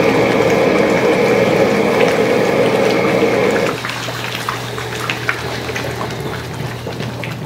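High-flame wok burner and jjajang sauce sizzling in a steel wok give a loud steady rush that drops off sharply about four seconds in. Afterwards the ladle scrapes and clicks against the wok over a steady low hum.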